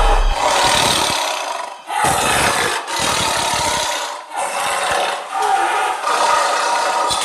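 Tiger snarling and hissing in a string of noisy, breathy calls about a second each, broken by short pauses.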